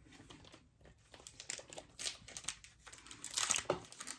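Foil Pokémon booster-pack wrapper crinkling in irregular crackles as it is handled, louder about three and a half seconds in as it is gripped to be torn open.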